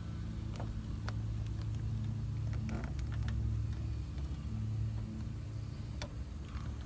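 Steady low mechanical hum, such as a motor or engine running, with a few faint clicks over it.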